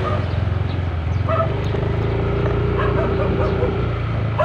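Motorcycle engine running steadily, with a dog barking a few times partway through.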